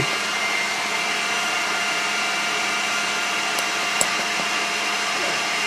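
KitchenAid stand mixer running empty at top speed, a steady motor whir with a constant whine. It is being warmed up so that the grease that has separated in its gearbox works back in. About four seconds in there is one light tap.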